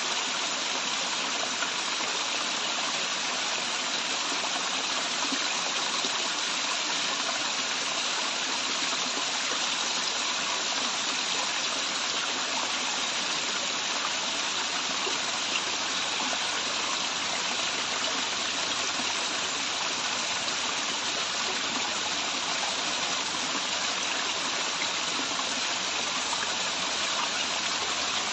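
Waterfall's running water: a steady, unbroken rush.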